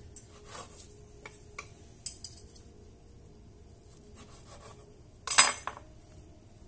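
Cutlery clinking and scraping on a plate: a few light clicks, then one much louder, short clatter about five seconds in.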